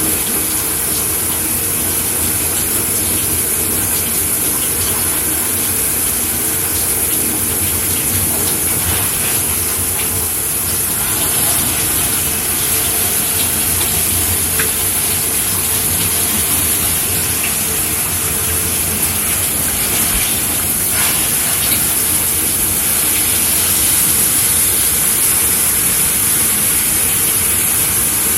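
Shower head running steadily, a continuous hiss of spraying water with faint occasional splashes.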